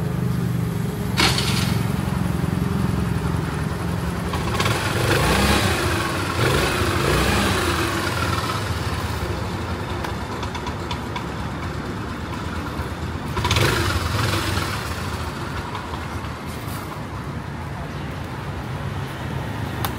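Street traffic. An engine runs steadily at first, then vehicles pass close by, the loudest around five to eight seconds in and again briefly around fourteen seconds in. There is a sharp knock about a second in.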